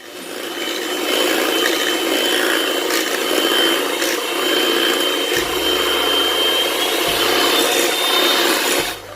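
Electric hand beater running steadily with a high motor whine, whisking a batter of eggs, sugar, butter and oil; it switches off near the end.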